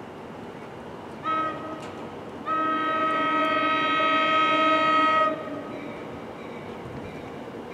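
Approaching NJ Transit train's air horn, several tones sounding together: a short blast about a second in, then a long blast of about three seconds, over the low rumble of the oncoming train.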